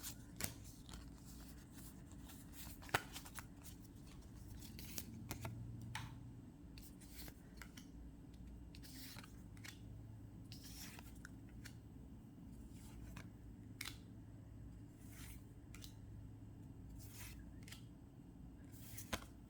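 Faint swishes of trading cards being slid one at a time off a freshly opened booster pack's stack, a light stroke every second or so, with a sharper click about three seconds in.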